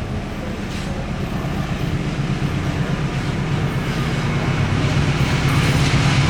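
Train running on the rails with wheels clattering, a steady rumble that grows louder as it comes closer.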